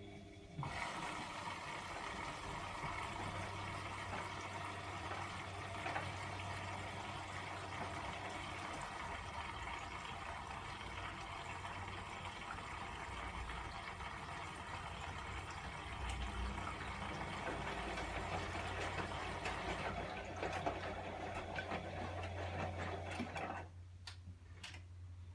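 Water rushing into a Bosch WAE24162GB/03 washing machine through its inlet valve as it fills for a rinse. It is a steady hiss that starts abruptly and cuts off abruptly shortly before the end.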